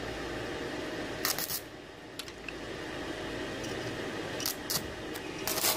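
Stick-welding arc from a repaired Izumi MAX 120 inverter welder being struck on a scrap pipe: a few short crackles as the electrode touches the work, then the arc catches near the end and crackles steadily. A steady fan hum runs underneath.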